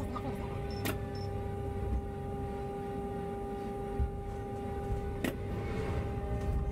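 Cabin sound of a bus on the move: a low engine and road rumble under a steady high whine, with two sharp clicks or rattles, about a second in and about five seconds in.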